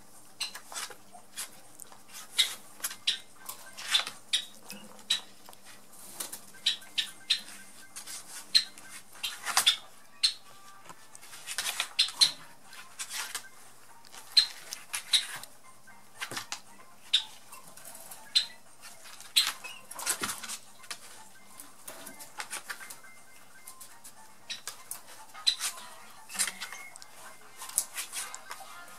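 Rabbits shifting about inside a cardboard box: irregular sharp scratches and clicks of claws against the cardboard, at times several a second.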